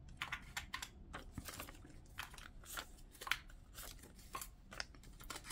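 Paper cash bills and cash envelopes being handled and sorted by hand: faint, irregular rustles and crinkles of paper, with one sharper tap a little after three seconds in.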